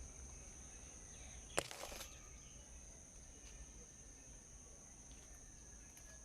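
A steady high-pitched insect drone with a few faint bird chirps, and one sharp click followed by a brief rustle about a second and a half in.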